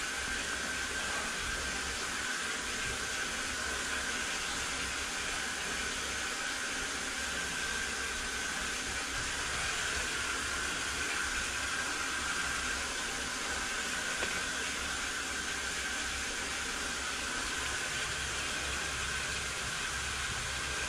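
High-pressure sewer jetter running, water jetting through a Warthog root-cutting nozzle in the drain line as it cuts tree roots: a steady hiss with a faint high tone.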